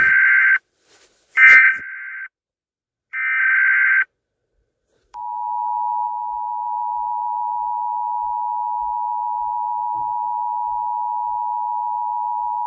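Emergency Alert System alert: three short bursts of warbling SAME header data tones in the first four seconds, then from about five seconds in the steady two-note EAS attention signal, held without a break.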